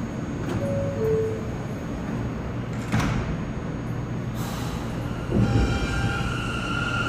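New York City subway train standing at an underground platform: a steady low rumble, with a short two-note falling chime about a second in and a sharp knock near three seconds. About five and a half seconds in a thump is followed by a steady high whine from the train.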